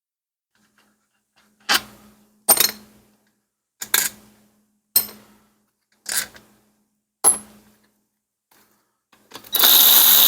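Small metal engine parts clinking against a hard surface: six sharp, ringing clinks about a second apart. About a second before the end comes a loud, brief burst of noise.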